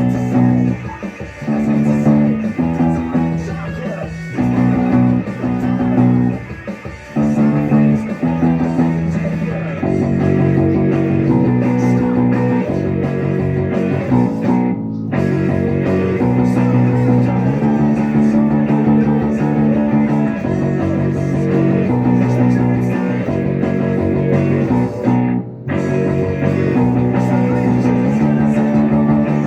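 Rock music with electric guitar and bass guitar playing a driving, repeated chord pattern, broken by two very short stops, about halfway through and near the end.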